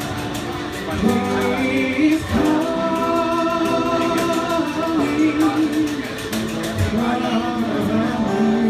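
A gospel song sung with guitar accompaniment, the voice holding long notes with vibrato.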